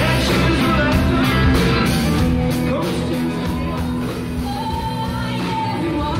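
A rock and roll band playing live: electric guitars, bass guitar and drums, with a steady drum beat.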